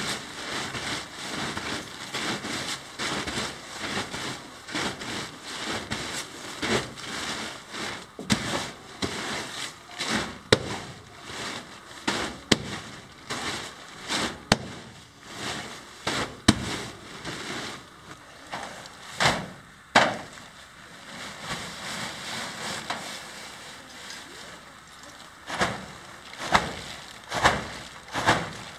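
Large plastic bag full of shredded styrofoam crinkling and rustling as it is handled and shaken, with many irregular sharp crackles.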